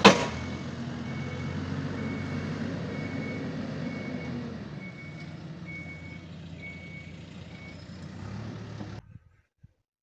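Hidromek backhoe loader's diesel engine running while the machine works the soil, with its reversing alarm beeping about every two-thirds of a second as it backs up. A sharp knock opens the sound, the engine grows quieter about halfway through, and the sound cuts off about a second before the end.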